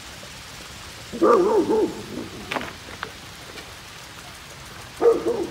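Steady rain hissing. About a second in, and again near the end, comes a short voice-like sound with a wavering, up-and-down pitch.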